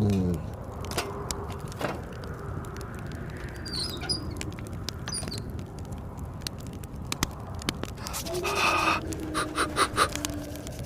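Wood fire crackling and popping in a fireplace, with sharp irregular snaps over a steady low blizzard wind. Near the end a long whine dropping slightly in pitch comes in, with a cluster of louder pops.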